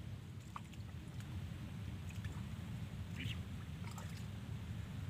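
Steady low wind rumble on the microphone at an open waterside, with a few faint light ticks and one short high chirp about three seconds in.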